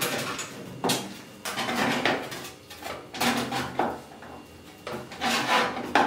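Hand crimper squeezing the end of a sheet-metal stove pipe, the metal scraping and crinkling with each squeeze in a series of short irregular bursts. The crimped end is being narrowed so it will fit inside the female end of the next pipe section.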